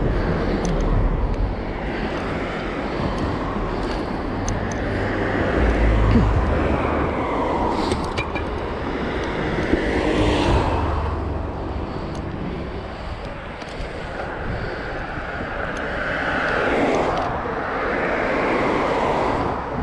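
Street traffic noise with vehicles passing and wind rumbling on the microphone, swelling louder around six and ten seconds in and again near the end.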